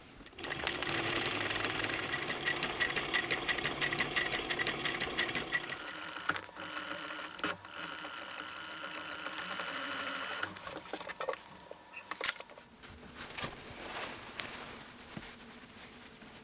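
Electric sewing machine stitching at speed through layers of wool coat fabric, in two runs with a short break about six seconds in. The stitching stops about ten seconds in, followed by a few sharp clicks and quieter handling.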